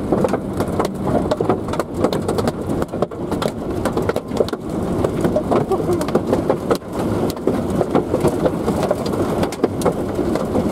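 Rain hitting a vehicle's roof and windows in a dense run of irregular taps, heard from inside the vehicle.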